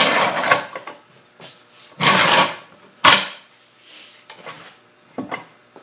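Wooden boards pressed and rubbed together along a glued edge to spread the glue: two scraping rubs about two seconds apart, a sharp wooden knock about three seconds in, and a lighter knock near the end.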